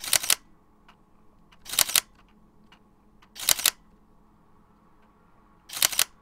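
Single-lens reflex camera shutter firing four times, about two seconds apart, each release a quick double click, with a few faint ticks in between.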